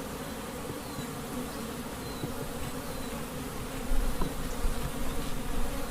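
Honeybees buzzing steadily around an open hive, a continuous hum. A low rumble joins about four seconds in.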